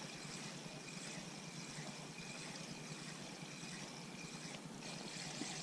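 Quiet river ambience: a faint, steady hiss with no distinct events.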